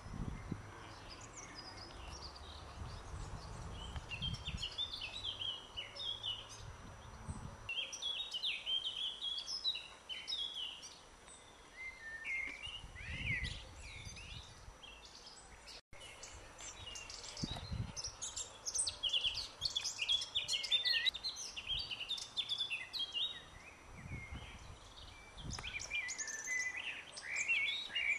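Songbirds singing and chirping in overlapping bursts, with patches of low rumble and a brief dropout about halfway through.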